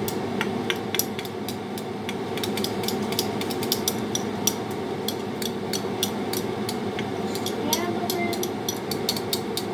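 Pot of vegetable broth at a boil: a steady rumble with many small, irregular pops and clicks.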